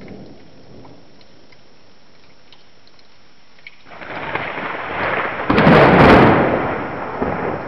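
Thunderclap in a thunderstorm over steady rain. A faint rain hiss runs alone at first; about four seconds in, the thunder breaks and swells, peaks in a loud crash about two seconds later, then rolls away.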